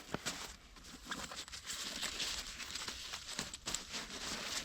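A ground tarp being unfolded and shaken out by hand, its sheet rustling and crinkling with many small crackles.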